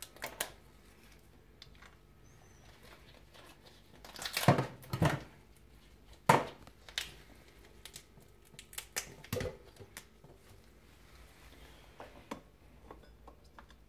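Cooked lobster shell being cracked and pulled apart by gloved hands over a stainless steel sink: crackling with a few separate sharp cracks and knocks, the loudest a short cluster about four seconds in.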